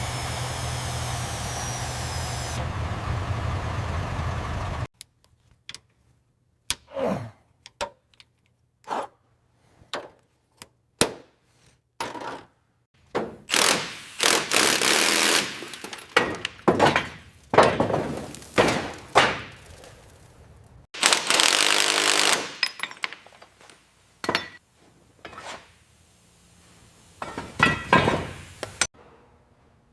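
An engine running steadily, cutting off suddenly about five seconds in. Then a string of sharp metal knocks and clanks, mixed with noisy bursts of tool work lasting one to three seconds each, typical of bodywork and rust removal.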